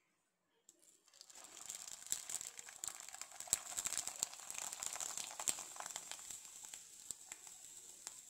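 Dried sago (sabudana) papad deep-frying in hot oil: a dense crackling sizzle full of sharp pops that starts about a second in as the papad goes into the oil, loudest in the middle and easing off toward the end as it puffs up.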